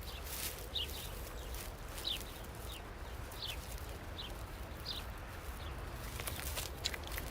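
Osprey calling from the nest: short, high, falling chirps repeated about once a second, over a steady low rumble.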